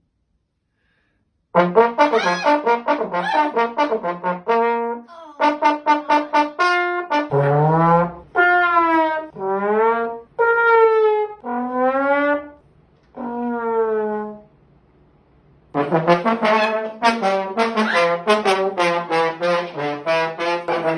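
Brass playing, trombone-like. A run of quick, short notes starts about a second and a half in; then comes a string of separate notes that bend up and down in pitch; after a short pause, another fast run of notes plays near the end.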